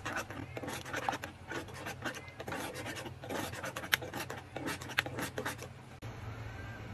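Metal spoon stirring a thick sauce in a saucepan, scraping and clicking against the pan in quick, irregular strokes. The stirring stops about six seconds in.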